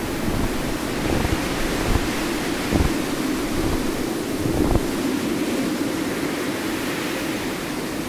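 Steady rushing wind-like noise, with a few soft low thumps about a second apart in the first five seconds.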